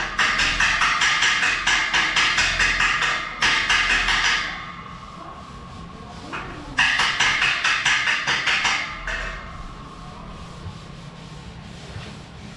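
Rapid rasping hand strokes on a stainless steel railing, about three or four a second, in two runs separated by a pause of a couple of seconds. The metal tube rings on briefly after each run stops.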